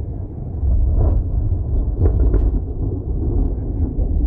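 Low, rumbling storm noise that swells louder about half a second in and stays loud, with a few faint clicks over it.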